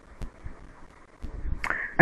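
Low room hum with two faint, sharp clicks, one about a quarter second in and one near the end: computer mouse clicks.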